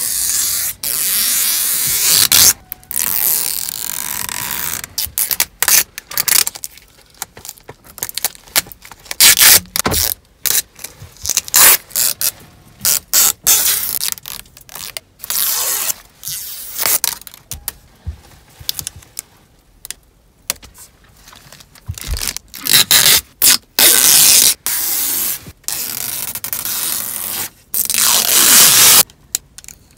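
Protective tape and plastic film being peeled and pulled off a new car's interior trim: irregular ripping and scraping noises, some pulls drawn out over a few seconds, others short and quick.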